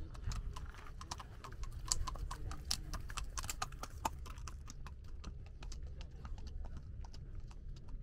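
Two horses walking on a concrete causeway, their hooves clip-clopping in a steady run of hoof strikes. The hoofbeats are loudest as the horses pass close by, two to four seconds in, and fainter after that.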